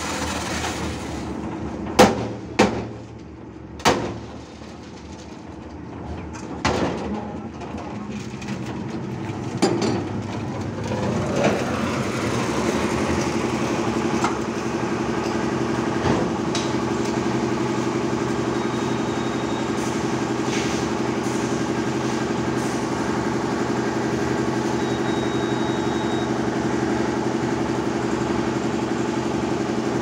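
A handful of sharp knocks as the concrete lift bucket is tipped and emptied into a trolley. From about ten seconds in, the engine of the hoist-fitted concrete mixer runs with a steady drone.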